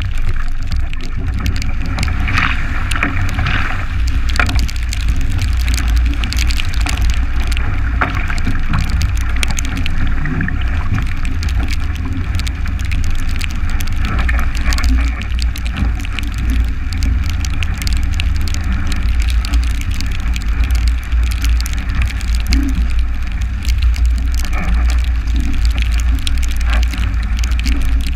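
Strong wind buffeting the GoPro's microphone in a steady low rumble, over water rushing past a 29er skiff's hull and spray spattering against the boat and camera as it sails fast in heavy air.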